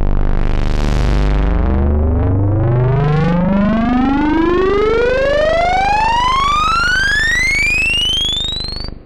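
Hardware synthesizer FX riser: one buzzy tone, rich in harmonics, sweeping steadily upward from a deep bass note to a high whistle, then cutting off suddenly near the end.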